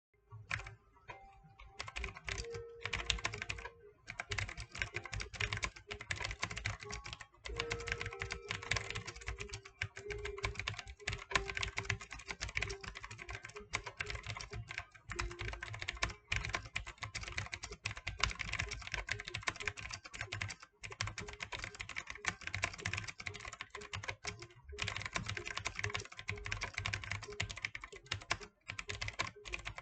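GAMDIAS Hermes M5 mechanical keyboard being typed on quickly and continuously, a dense run of key clicks broken by a few brief pauses.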